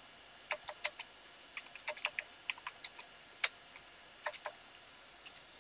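Computer keyboard being typed on: a run of short, unevenly spaced key clicks, roughly three or four a second, with brief pauses between groups.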